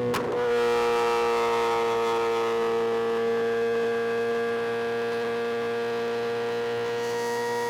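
Suzuki GSX-R 750 inline-four engine running at steady high revs while riding. There is a brief break in the note right at the start; the pitch then sags slightly and climbs again near the end.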